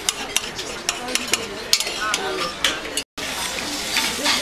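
Cutlery and crockery clinking in a string of sharp clinks, with murmured voices behind. The sound drops out for an instant about three seconds in.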